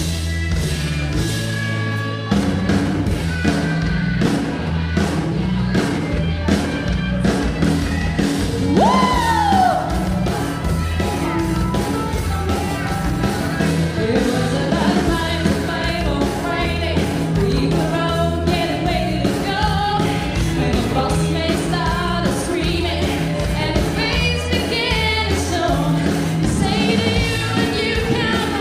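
Live rock band playing a song with a female lead vocal over two electric guitars, bass guitar, drums and keyboards. The full band comes in with heavier bass and drums about two seconds in.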